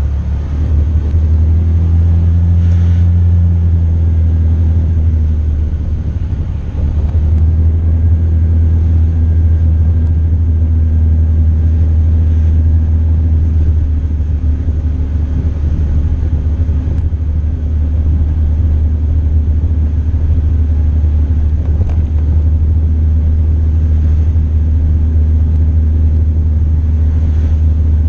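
Motorcycle engine running while riding, under a heavy low wind rumble on the microphone. It eases off briefly about six seconds in, then runs steadily again.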